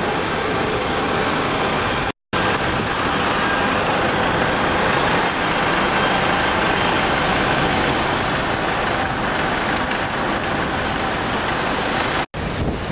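Steady road traffic noise from passing trucks, vans and buses. It cuts out completely for a moment twice, about two seconds in and near the end.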